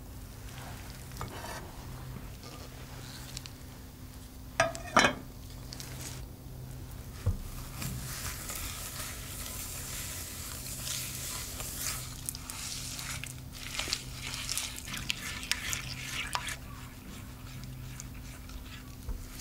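Silicone spatula stirring and scraping butter, sugar and chopped dark chocolate around a glass bowl set over a pan as they melt. There are two sharp knocks about five seconds in, and from about eight seconds on the scraping turns into a busy, continuous rasp with small clicks.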